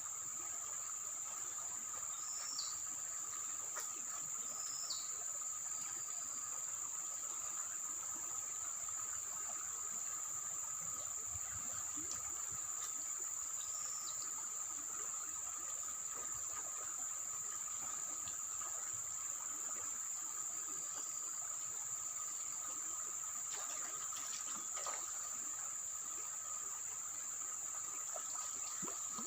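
Steady, high-pitched chorus of insects droning without a break, with a few short chirps over it.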